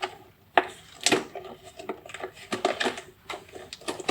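A series of irregular sharp clicks and light knocks, about half a dozen, spaced unevenly.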